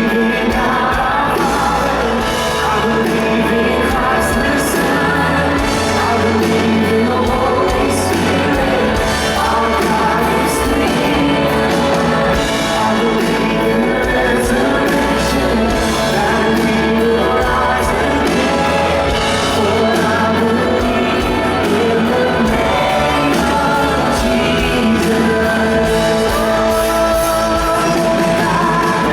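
A church praise team singing with a backing band of drums and guitar, a steady, full sound in a large hall.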